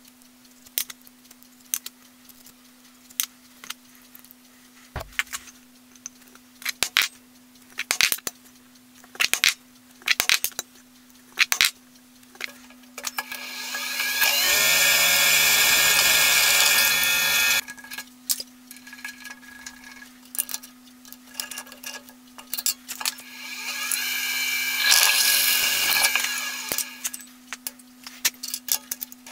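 Drill press drilling into a small aluminium block twice, each cut lasting a few seconds, once around the middle and again near the end, over a steady motor hum. Scattered clicks and knocks of the block being handled and clamped in the vice come between the cuts.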